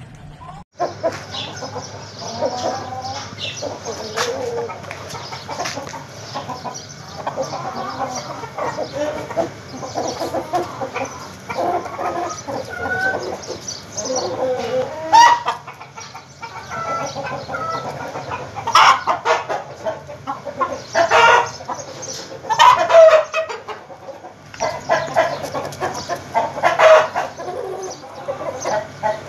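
Brahma chickens, roosters and hens, clucking and calling over one another, with several louder calls in the second half.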